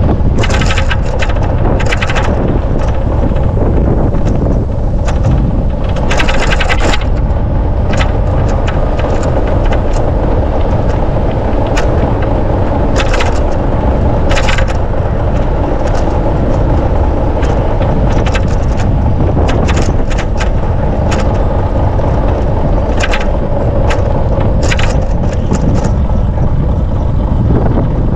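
Riding a bicycle: a steady rushing noise of wind and tyres on the path, with frequent sharp crackling clicks and rattles.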